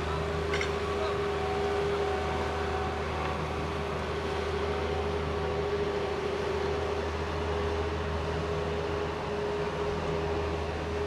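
Steady machinery hum: a constant pitched tone over a low drone, unchanging throughout.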